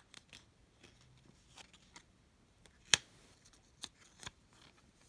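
Faint clicks and taps of small parts and tools being handled during an iPhone 6s battery replacement, with one sharper click about three seconds in and two lighter ones a second later.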